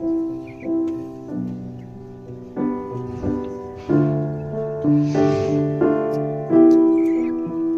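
Slow background piano music, notes and chords struck every second or so and left to ring and fade.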